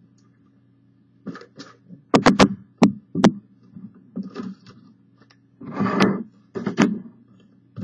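Metal trading-card collector's tin being opened and handled: a quick run of sharp clicks and clanks from the lid about two seconds in, a scraping rustle near six seconds, then another click.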